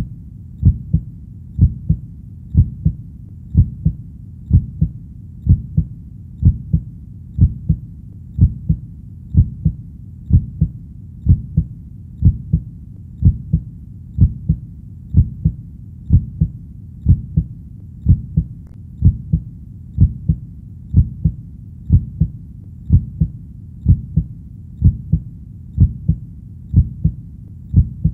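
Heartbeat sound: low, steady double thumps (lub-dub) about once a second, with no change in pace.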